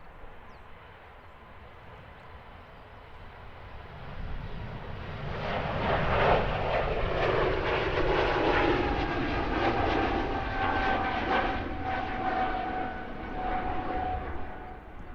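An airliner passing by with its engines running: the engine noise builds about four seconds in, is loudest through the middle, and eases off near the end, with a whine that slides slowly down in pitch as it goes past.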